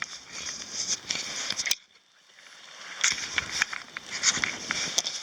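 Young campfire of kindling crackling, with many quick sharp pops over a steady hiss. The sound drops out almost completely just under two seconds in, then comes back.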